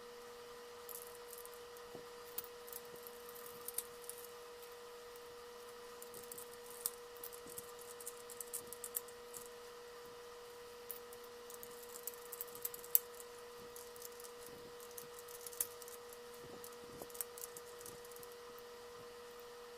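Faint clicks and light rattles of plastic Rubik's Cube pieces being handled and snapped back together during reassembly, scattered irregularly, over a steady hum.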